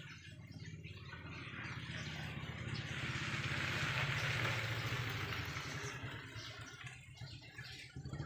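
A motor engine running with a steady low hum, joined by a rushing noise that swells to a peak about halfway through and then fades.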